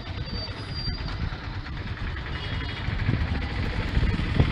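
Street traffic: the steady rumble of vehicle engines running, with a couple of faint, brief high tones over it.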